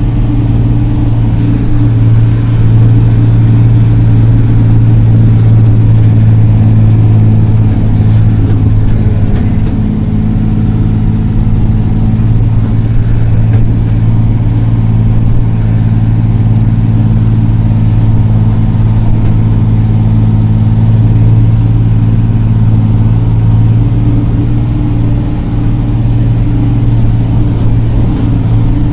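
Diesel engine of a Marcopolo Senior Midi bus running steadily while the bus is under way, heard from inside the passenger cabin as a loud, even drone.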